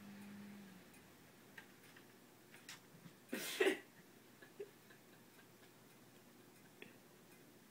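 A cat's claws clicking and tapping on a hard floor as it dashes after a laser dot, with one louder scrabbling skid about halfway through.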